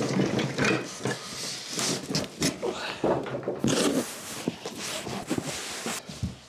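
A cardboard box being handled, lifted off a workbench and carried: cardboard scraping and rustling, with irregular knocks throughout.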